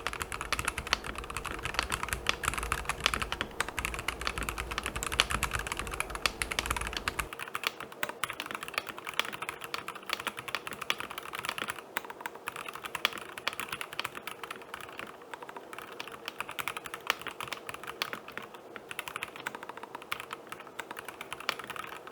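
Continuous fast typing on a Royal Kludge RK H81 gasket-mount mechanical keyboard with stock cyan switches and thick PBT keycaps: a dense, uneven stream of key clicks and clacks.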